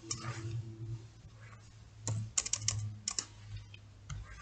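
Computer keyboard being typed on, a few keystrokes near the start and then two quick runs of keystrokes in the middle, as figures are entered into spreadsheet cells.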